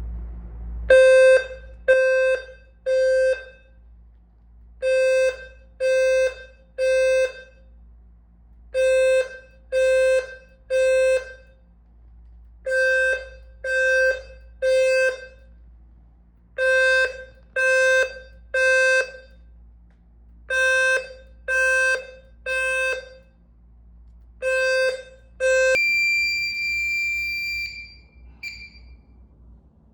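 Fire alarm smoke detector sounder bases sounding the temporal-three evacuation signal: a low buzzing tone in groups of three half-second beeps, each group followed by a pause, repeated seven times. Near the end the pattern stops and a higher steady electronic tone holds for about two seconds, ending with a short chirp.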